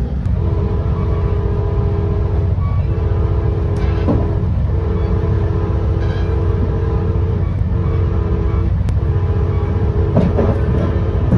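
Nathan K5LA five-chime air horn on an F59PH diesel locomotive sounding a chord in a series of long blasts with brief breaks, the fourth blast short, heard from inside a passenger coach behind it. Under it runs the steady low rumble of the moving train.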